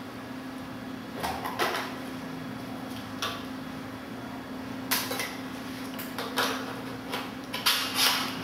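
Irregular clicks, taps and rustles of an e-bike conversion kit's handlebar part and its wires being handled and fitted onto a bicycle handlebar, the loudest near the end, over a steady low hum.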